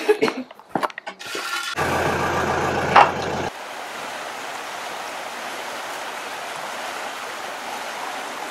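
A few knocks and clicks, then a short steady low drone that stops abruptly about three and a half seconds in; after it, stream water runs steadily over rocks.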